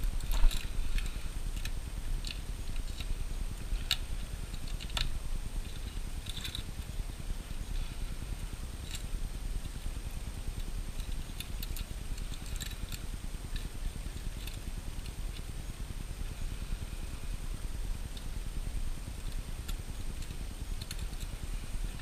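Hands working a hard drive loose from its bay inside an opened iMac: scattered small clicks and rubbing of metal and plastic parts over a low handling rumble, with a louder bump about half a second in.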